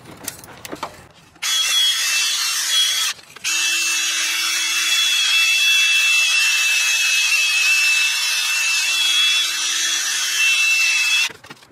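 Ryobi 18V cordless drill spinning a wire brush against the engine block, scrubbing the water pump's gasket seat clean. It starts about a second and a half in, stops briefly, then runs steadily until it cuts off near the end.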